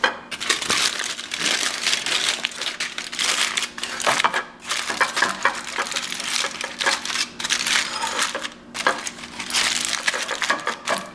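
Aluminium foil crinkling and crumpling as it is folded and crimped by hand into a packet, in stretches with a few brief pauses.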